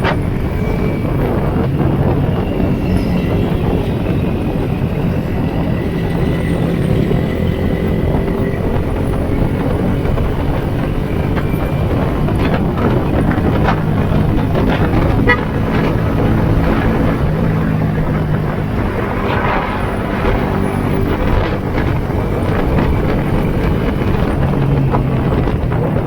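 Yamaha Sniper 150's single-cylinder four-stroke engine running while the motorcycle is ridden, its pitch rising and falling with the throttle, with wind and road noise.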